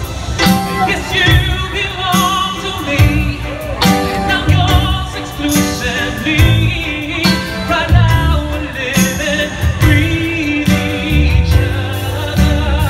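Male vocalist singing into a microphone over amplified band accompaniment with drums and bass, holding notes with a wide vibrato.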